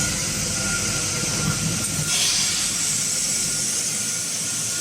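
Fiber laser welding machine running during a welding test: a steady hiss with a low rumble beneath, swelling briefly louder about two seconds in.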